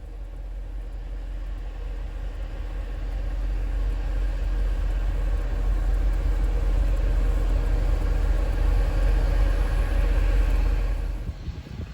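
A vehicle engine rumbling, growing steadily louder as it draws near, then dropping away sharply near the end.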